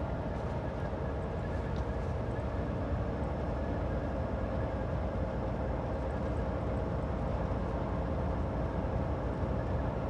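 Semi-truck's diesel engine running steadily, heard inside the cab as a low drone with a steady hum.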